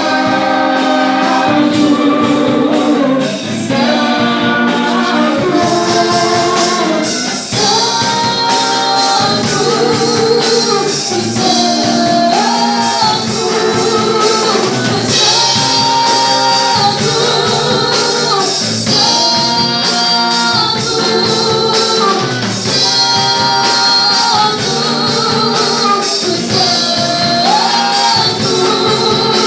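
Christian worship music: a band playing with long held sung notes over a steady beat.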